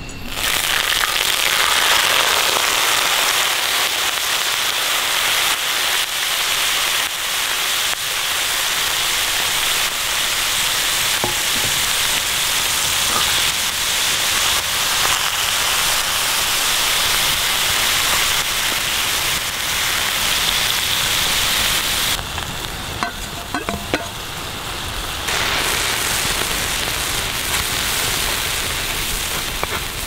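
Food sizzling and frying in a hot pan, a dense steady crackle. It thins briefly with a few clicks about two-thirds of the way through, then picks up again.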